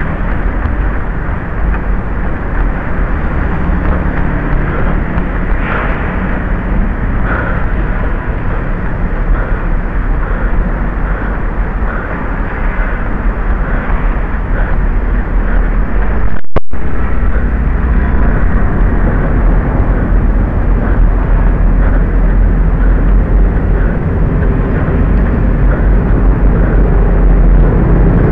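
Loud, low wind buffeting and motion noise on a small handheld camera's microphone carried by a runner, with faint regular footfalls. The sound cuts out for a moment a little past halfway.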